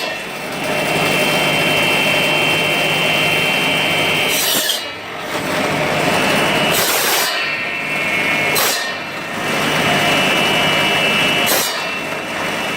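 Electric bone-cutting saw machine running and sawing through bone: a steady whine over a harsh rasping cut, dipping briefly four times.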